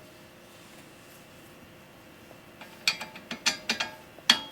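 Metal parts of a tricycle frame clinking as a large bolt and nylon-insert nut are fitted to join the frame: a handful of irregular sharp metallic clicks and knocks starting a bit over halfway through.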